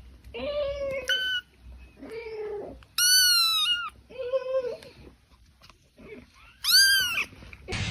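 Kittens meowing: about six short calls with pauses between, some high-pitched and some lower.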